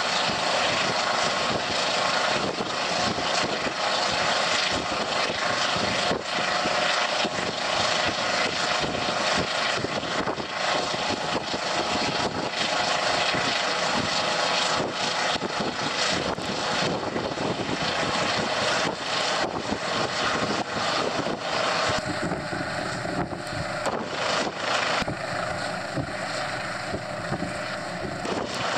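Helicopter hovering, a steady rotor and turbine noise with a fast flutter, growing a little quieter in the last few seconds as it moves off.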